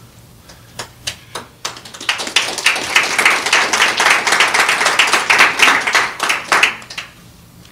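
Audience clapping: a few scattered claps at first, then a dense round of applause for about five seconds that dies away near the end.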